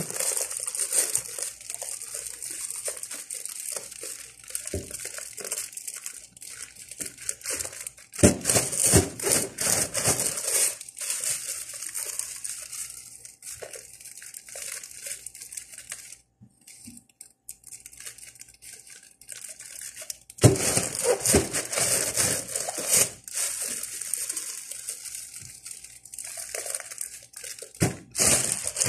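Thin plastic bags crinkling and rustling in irregular bursts as they are handled, knotted and moved about, with a short lull a little past the middle.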